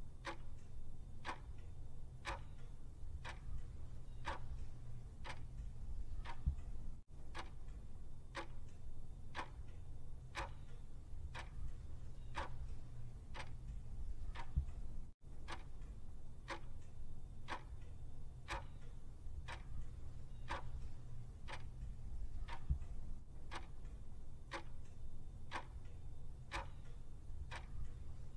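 Clock-ticking sound effect of a quiz countdown timer, an even tick about twice a second, marking the seconds left to answer.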